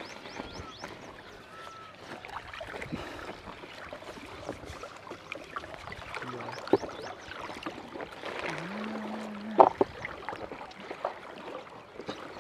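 Water lapping against a small fishing boat while a fishing net is handled and paid out over the side, with light rustling and clicking and two sharp knocks, one about a third of the way in and one near three quarters.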